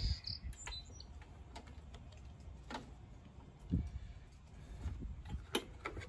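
A few faint, scattered clicks and knocks of hand tools and parts being handled, over a low steady rumble.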